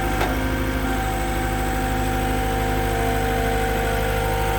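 A machine engine idles steadily, with a constant whine over the low engine beat. One short click sounds about a quarter of a second in.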